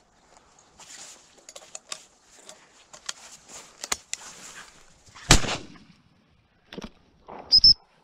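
Rustling and crackling through dry grass, then a single loud shotgun shot about five seconds in. Two more loud, sharp sounds follow close together near the end.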